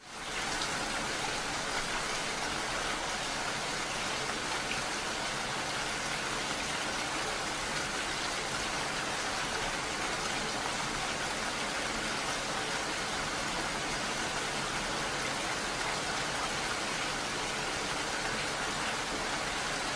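Steady rain, an even hiss of falling rain that fades in at the start and holds without change.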